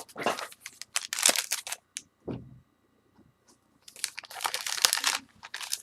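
Foil wrapper of a baseball card pack being torn open and crinkled, in two spells of crackling with a short pause and a soft knock between them.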